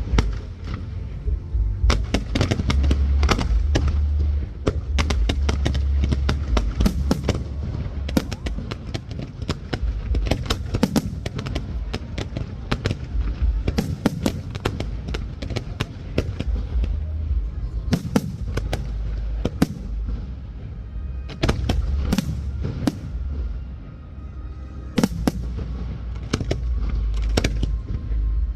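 Aerial fireworks going off in quick, irregular succession: many sharp bangs and crackling bursts, one after another, over a constant low rumble.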